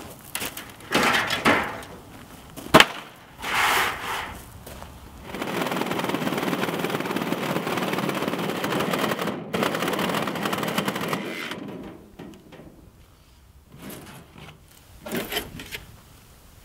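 Cordless reciprocating saw cutting through a rusted steel sheet: a dense, steady buzzing rattle lasting about six seconds, with one brief break in the middle. Before and after it come knocks and clatter of sheet metal being handled, including one sharp crack near the start.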